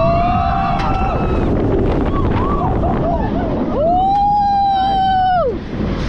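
Roller-coaster riders screaming over heavy wind rushing across the microphone. A woman's long held scream comes at the start, short yells follow, and a second long scream runs from about four seconds in and drops off near the end.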